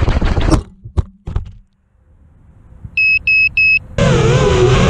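FPV quadcopter's motors cut out suddenly, which the caption puts down to the flight controller resetting mid-flip, followed by a few knocks as the quad crashes and a stretch of near quiet. About three seconds in come three short identical high beeps, and about a second later an FPV quad's motors start loud, whining up and down in pitch.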